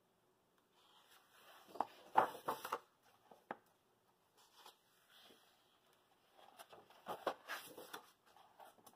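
Coloring book pages being turned by hand, paper rustling and flapping in two bursts: about two seconds in and again around seven seconds in.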